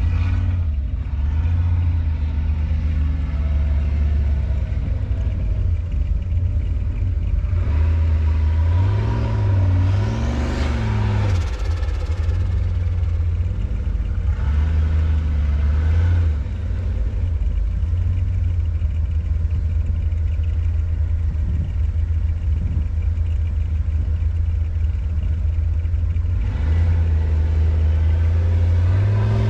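Four-wheel-drive truck engine running steadily under load while driving off-road, with its pitch rising and falling as it is revved, most noticeably about a third of the way in and again near the end.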